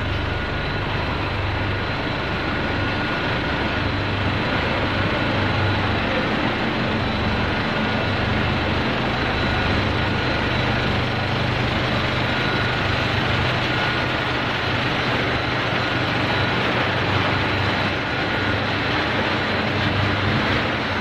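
Fried wheat-snack processing line running: a steady noise of motors and conveyors, with a constant low hum and a thin, steady high whine over it.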